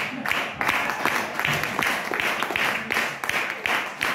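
Small crowd clapping together in a steady rhythm, about three claps a second.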